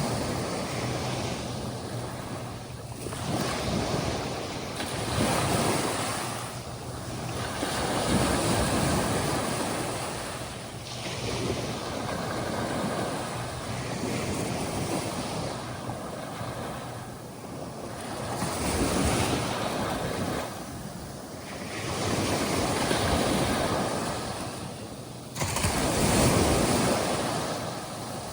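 Atlantic Ocean surf breaking and washing up onto a sandy beach. The wash swells and ebbs every few seconds, with a sudden louder break near the end.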